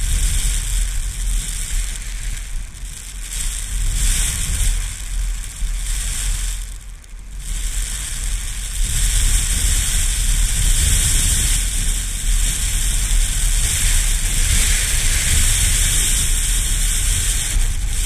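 Strong wind buffeting the action camera's microphone: a heavy low rumble under a steady hiss. It eases briefly about seven seconds in, then gusts harder.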